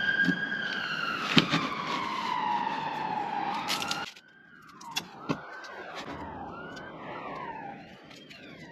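An emergency-vehicle siren wailing, with one slow fall in pitch and then, after a sudden drop in level about four seconds in, fainter and shorter falling sweeps. Sharp handling clicks sound over it, the loudest about a second and a half in and two more near five seconds.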